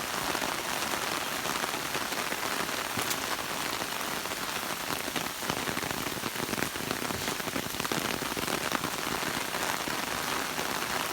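Steady rain falling: an even, dense hiss of drops with many small separate drop hits scattered through it.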